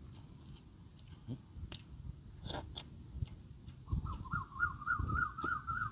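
A person chewing and eating grilled fish by hand, with soft mouth noises and small clicks. About four seconds in, a bird starts calling nearby: a quick run of short repeated chirps, about four a second.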